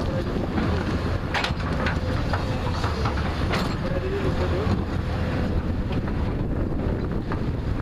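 JCB backhoe loader's diesel engine running steadily, with scattered sharp clanks and knocks over it.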